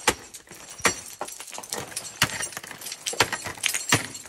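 Ice-climbing gear in use: a series of sharp strikes, the loudest roughly a second apart, with metallic clinking and jingling between them.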